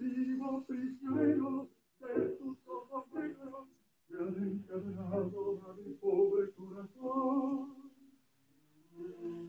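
A man singing unaccompanied, in short phrases with a long held note about seven seconds in.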